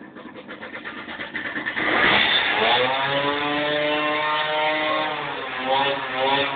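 1964 Zündapp EFS 220m moped's two-stroke engine, its firing pulses quickening and growing louder, then revved hard about two seconds in: the pitch climbs quickly, holds high for about three seconds and drops back near the end.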